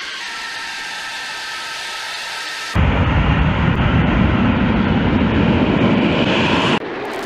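Jet aircraft noise in edited segments: a steady jet whine with high tones, then a sudden cut about three seconds in to a much louder, low jet rumble that stops abruptly near the end.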